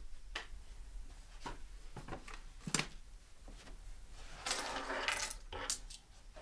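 Small hard objects set down and handled on a wooden table: a series of light clinks and knocks, the sharpest about halfway through and a busier run of rustling clatter a little later.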